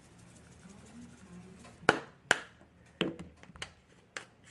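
Cayenne pepper container being handled over the bowl: a series of about six sharp, irregular clicks and taps, starting about two seconds in, as the spice is tapped out.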